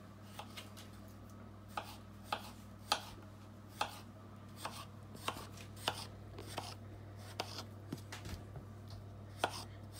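Kitchen knife slicing peeled potatoes into thin rounds on a wooden chopping board: short, sharp knocks of the blade on the board, unevenly spaced, about one or two a second.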